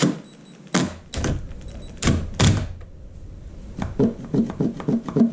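Hard knocks and thunks from handling a Duramax diesel fuel filter housing clamped in a steel bench vise: four loud knocks in the first two and a half seconds, then softer knocks coming faster.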